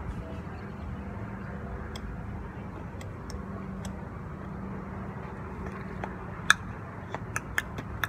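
Steady low hum of outdoor urban background noise, with a few sharp clicks near the end.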